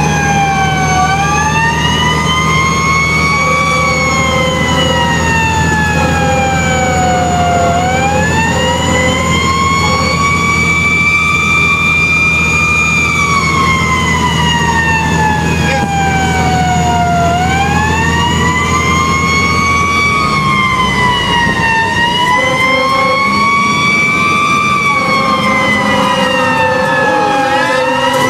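Fire truck's siren wailing, its pitch rising and falling slowly in cycles of a few seconds, heard from inside the cab over the truck engine's low drone. The engine drone drops away about 20 seconds in.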